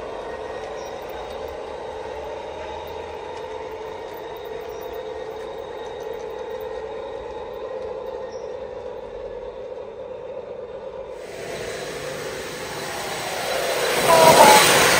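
Sound-fitted O gauge model InterCity 125 (HST) playing its diesel power-car engine sound through its onboard speaker: a steady hum with a whine as it runs along the track. About eleven seconds in the sound turns fuller and noisier and grows louder, loudest near the end as the model comes close.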